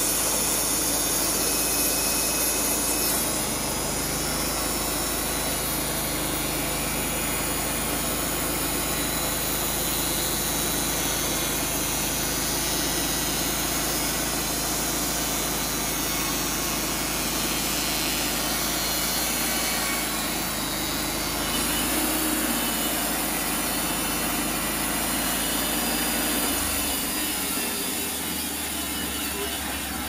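Wood-Mizer LT35 portable band sawmill running steadily on its engine, its band blade cutting through a log at the start. The sound eases a little about three seconds in and then stays steady.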